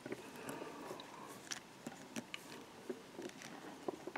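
Faint, irregular light ticks and clicks of fly-tying handling: tying thread being wrapped onto a hook in the vise from a bobbin.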